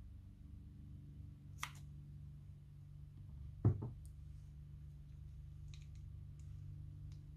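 Scissors snipping the tip off a plastic piping bag: one short sharp snip about one and a half seconds in, followed about two seconds later by a dull double knock, over a low steady hum. A few faint small clicks come near the end.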